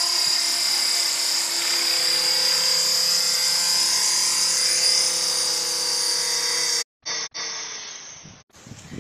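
Radio-controlled model helicopter's motor and rotor giving a steady high whine that cuts off abruptly about seven seconds in. A brief, fainter, fading stretch of sound follows.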